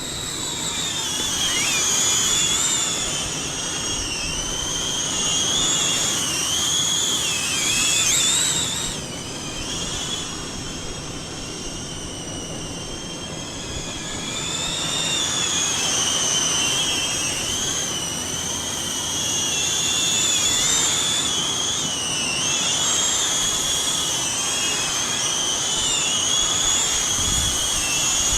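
Xpert Mini O3 caged FPV drone's motors and propellers whining, the high pitch wavering up and down with the throttle and dipping briefly about nine seconds in.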